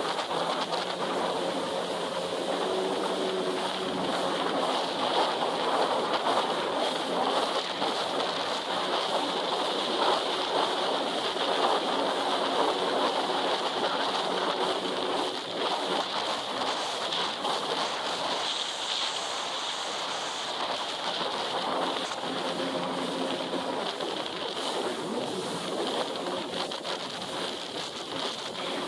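Sea-Doo GTS jet ski running at speed, about 36 mph: a steady engine drone under the rush of water and wind on the microphone.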